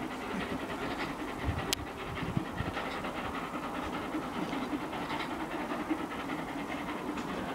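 Steam locomotive Scots Guardsman, an LMS Royal Scot class three-cylinder 4-6-0, working a train and chuffing its exhaust in quick, even beats.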